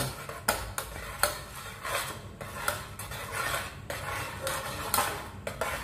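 Metal spoon stirring a thickening coconut-milk sauce in an aluminium pot, clinking and scraping against the pot's sides and bottom about twice a second.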